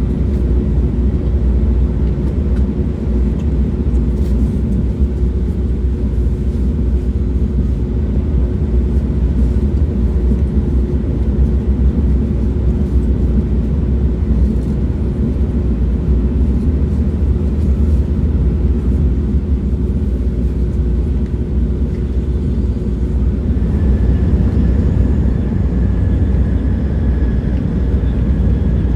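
Train running: a steady low rumble with a constant hum, which fades out about 24 seconds in as a faint higher whine comes in.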